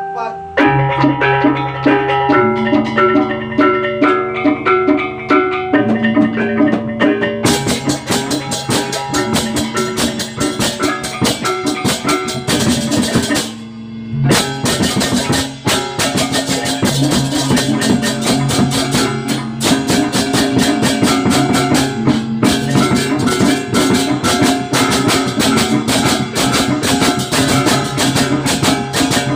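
Balinese baleganjur gamelan ensemble playing. For the first seven seconds gongs ring out a repeating pattern of pitched strokes; then the full ensemble comes in with dense, fast cymbal and drum strokes. The playing breaks off briefly about fourteen seconds in, then the full ensemble resumes.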